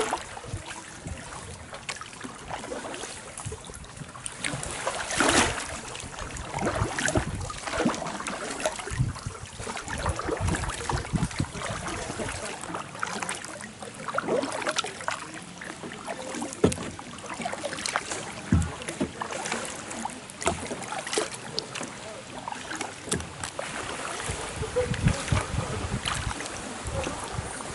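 Kayak paddles dipping into and splashing through calm river water in irregular strokes, with drips and occasional sharp clicks.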